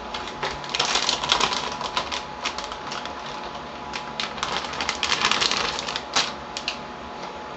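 Metallised anti-static bag crinkling and crackling as it is handled and a motherboard is slid out of it. The crackles come in two dense bursts, one about a second in and one from about four to six seconds in, with a few single crackles after them.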